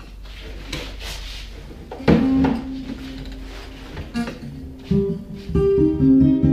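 Intro music: a rising hiss for about two seconds, then plucked string notes come in and build up toward the end.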